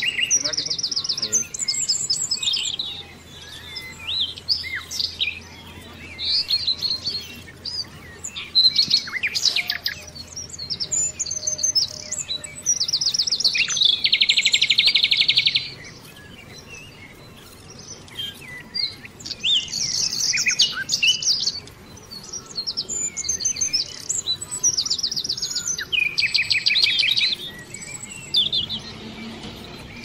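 Songbirds chirping and trilling, several calls overlapping. A loud rapid trill lasts about two seconds around the middle, and another comes near the end.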